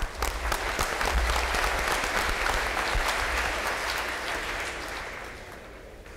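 Audience applauding, building in the first second and dying away near the end.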